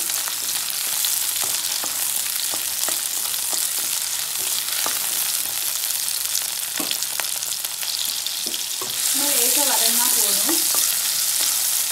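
Small onions, tomato pieces and a green chilli sizzling in hot oil in a non-stick kadai, stirred with a wooden spatula, with occasional light clicks. The sizzle grows louder about nine seconds in.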